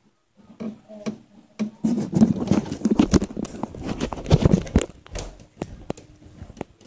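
Footsteps and camera handling noise: a dense run of scuffs, knocks and thumps from about two seconds in to about five seconds, with scattered clicks either side.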